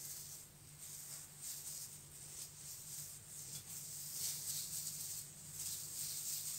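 Faint rustling of thin plastic food-prep gloves as a banana is peeled by hand, over a steady low hum.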